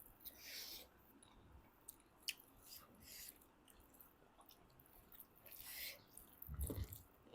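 Faint, close-up chewing and mouth smacking of people eating pork, a series of short wet smacks and small clicks, with a soft thump near the end.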